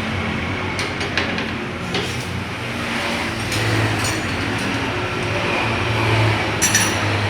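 An engine running steadily, its low hum rising a little in the middle, with a few light clicks and taps.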